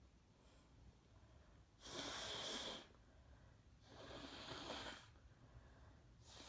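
Air pushed hard through a congested nose: two hissy nasal breaths of about a second each, and a third starting near the end.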